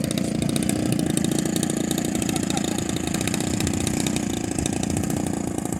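Small two-stroke gasoline engine of a radio-control model airplane running steadily at a constant speed, with a fast, even firing pulse.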